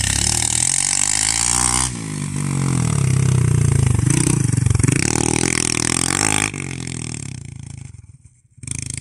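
Motorcycle engine revving hard on a launch from a standing start, its pitch rising and falling as it pulls away, then dropping off about six and a half seconds in and fading out.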